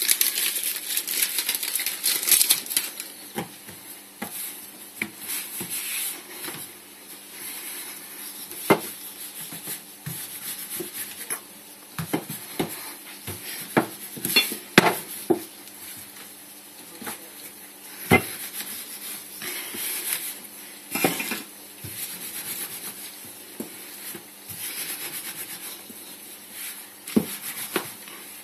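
Pastry dough being handled and rolled out with a wooden rolling pin on a wooden board: scattered sharp knocks and thuds of wood on wood, with soft rubbing and scraping between them. A rustling hiss fills the first couple of seconds.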